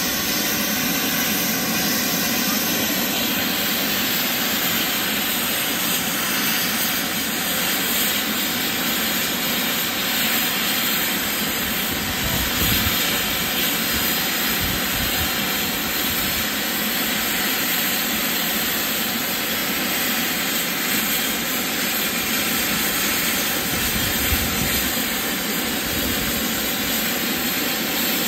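Safety valves of the GWR Castle class steam locomotive 7029 Clun Castle blowing off, a loud steady hiss of escaping steam: the boiler is at full working pressure while the engine stands.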